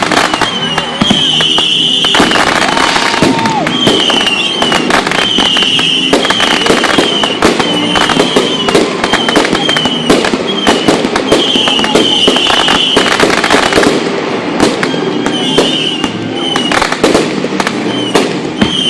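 Fireworks going off in quick succession: a dense run of bangs and crackling bursts. A high chirping sound recurs again and again behind them.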